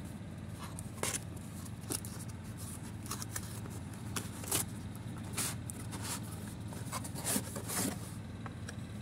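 Cardboard packaging being handled: an irregular run of short scrapes, rubs and taps as a doll box is opened and its cardboard tray slid out, over a steady low hum.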